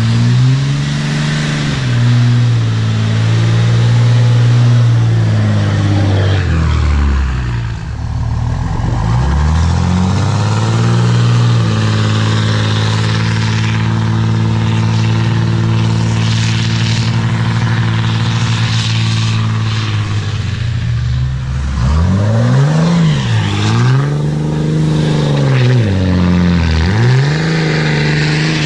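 Straight-piped 5.9 Cummins inline-six turbodiesel in a Dodge Ram pickup revving hard as it spins its tires through loose sand. The engine note is held high for long stretches and drops off briefly about seven seconds in. Near the end it makes three quick rev-and-drop swings.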